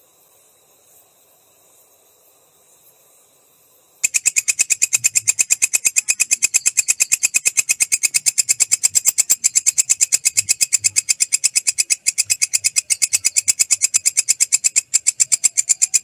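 Walang kecek katydid stridulating. After about four seconds of faint background, a loud, rapid train of evenly spaced, high-pitched chirping pulses starts suddenly and keeps on steadily until it stops at the very end.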